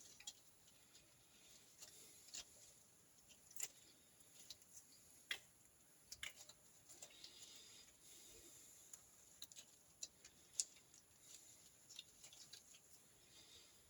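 Faint, scattered small clicks and taps of oiled gear-type oil pump parts being handled and fitted back together, with near silence between them.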